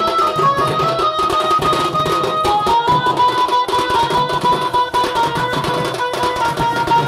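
Street band of barrel drums (dhols) beaten in a fast, dense rhythm, under a melody of long held notes that step up and down in pitch.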